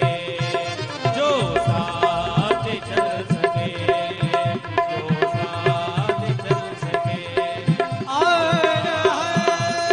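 Hindi devotional bhajan music: tabla keeping a steady beat under a sustained melodic accompaniment. A melody line swoops up and down about a second in and again near the end.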